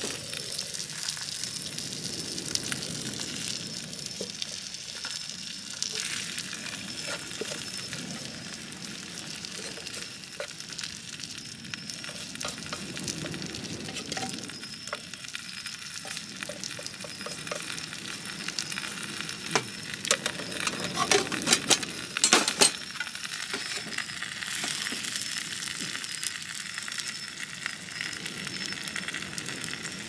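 Food sizzling in a frying pan over a wood fire, a steady hiss with scattered clicks. A cluster of sharp, louder clicks or knocks comes a little past two-thirds of the way through.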